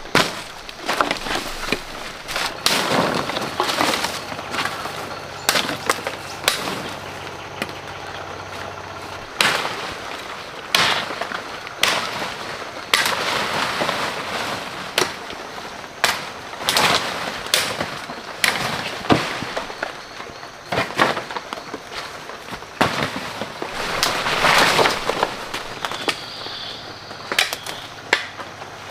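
Dry dead branches cracking and snapping as they are broken off for firewood: a long run of irregular sharp cracks, some in quick clusters, with rustling of leaves and brush between them.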